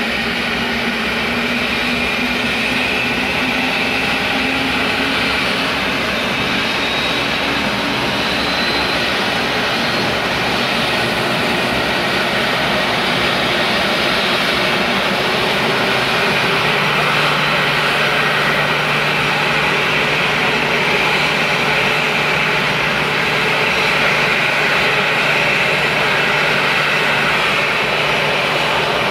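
Boeing 737-800's CFM56-7B turbofan engines running at taxi power as the jet rolls slowly toward the listener: a loud, steady jet rush with a high whine. A low steady hum joins about halfway through.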